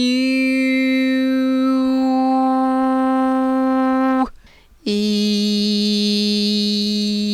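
A woman singing sustained vowels, each held on one steady pitch without vibrato. About a second in the vowel colour changes on the same note; a little past four seconds she breaks off for half a second, then holds a new, lower note on another vowel.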